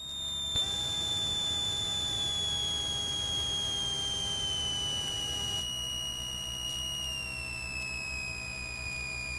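Cessna 182 cockpit audio heard through the headset intercom feed: a steady high whine that steps down slowly in pitch a few times, over a low engine drone. A quieter mid-pitched tone sounds alongside it from about half a second in until about five and a half seconds in.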